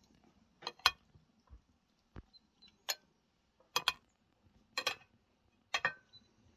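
Metal serving spoon knocking against a glass baking dish as stuffed cabbage rolls are lifted out: sharp clinks, several in quick pairs, about once a second.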